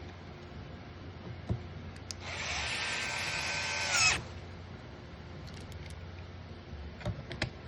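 Electric screwdriver running for about two seconds, driving in a screw as the fridge's door latch is fastened, with a steady whine that cuts off as it tightens. A few small clicks follow near the end.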